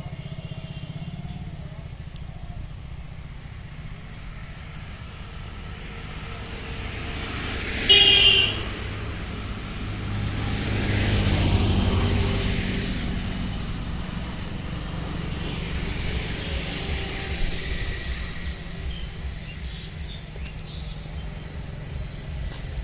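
Road traffic: a vehicle horn honks briefly about eight seconds in, then a passing vehicle swells and fades over a steady low traffic hum.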